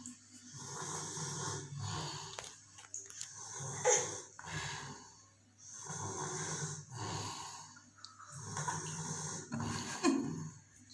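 A sleeping toddler snoring, one snore with each breath, about every one and a half to two seconds.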